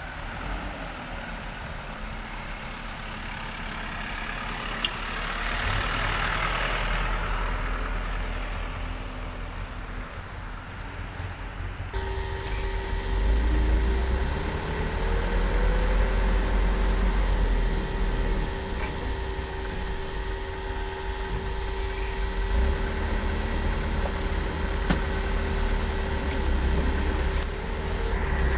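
Low rumble of truck engines running. About twelve seconds in the sound changes abruptly, and steady humming tones sit over the rumble from then on.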